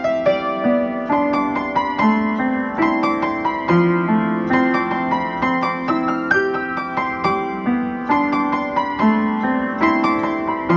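Background piano music: a melody of struck notes over held lower notes.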